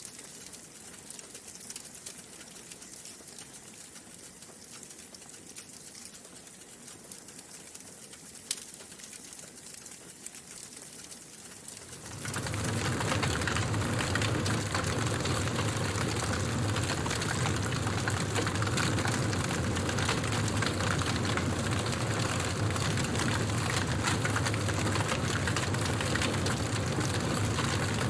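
Wood fire crackling, faint at first with sparse small pops and one sharper snap, then about twelve seconds in it jumps suddenly much louder to a dense, steady crackle and rush with a low rumble beneath.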